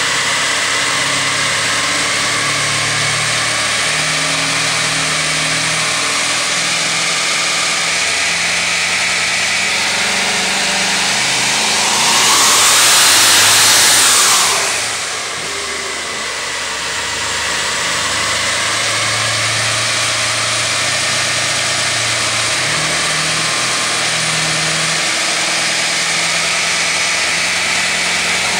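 Twin-turbocharged Dodge Challenger Hemi V8 running on a chassis dyno. About twelve seconds in it gets much louder for a couple of seconds as the rear tyre spins and smokes on the roller, then it drops back to a steady run.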